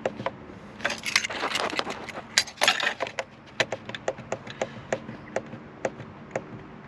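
Irregular metallic clicks and clinks of tools and parts being handled while the steering wheel is refitted on a car's steering column. They are busiest from about one to three seconds in, then thin out to single clicks.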